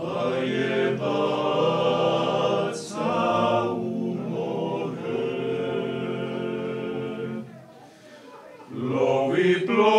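A cappella vocal ensemble singing a slow Croatian song in several parts, holding long notes. One phrase ends about seven and a half seconds in, and the next begins after a short breath near the end.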